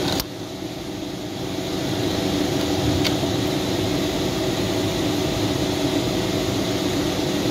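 Electric radiator cooling fan of a Chevrolet Orlando running with a steady hum, the fault the owner is chasing: it runs on constantly with the ignition on. A click just after the start as a relay is pulled from the underhood fuse box, after which the fan sound dips and builds back up over about two seconds; a second faint click around three seconds in.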